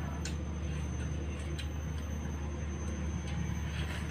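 A steady low hum with a thin high whine over it, and a few soft wet bites and smacks of two people eating watermelon slices.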